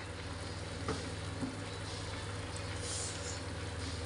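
Spicy sauce simmering with chicken pieces in a frying pan on a gas stove, a steady bubbling hiss with a couple of faint pops, as the liquid cooks down. A low steady hum runs underneath.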